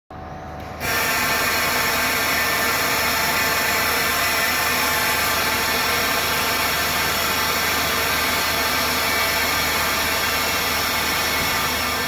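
Vacuum forming machine running: a loud, steady mechanical whine-hum with many overtones. It starts abruptly about a second in as the pressing frame lowers onto the plastic sheet.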